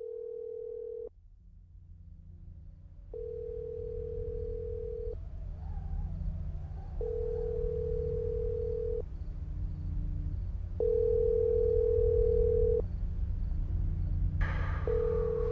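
Horror film trailer soundtrack: a steady mid-pitched tone about two seconds long, sounding four times at roughly four-second gaps over a low rumbling drone, with a rush of noise coming in near the end.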